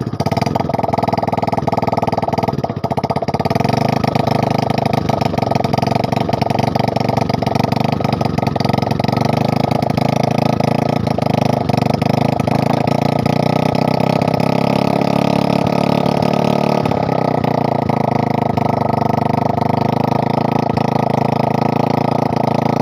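Honda CD70's freshly reassembled single-cylinder four-stroke engine running steadily just after a kick start, test-run to check its sound after the cylinder rebuild. Its carburettor screw is being turned with a screwdriver, and the running note changes a little about two-thirds of the way through.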